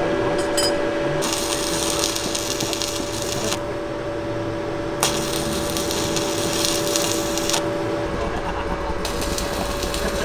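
Electric arc welding on a DKW classic car's broken exhaust: three spells of crackling sizzle, each about two to three seconds, starting and stopping sharply, over a steady hum.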